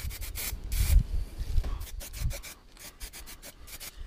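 Handling noise: rubbing and scraping on the camera microphone as it is moved about, with quick clicks and irregular low thumps. It is busiest in the first second and quieter in the middle.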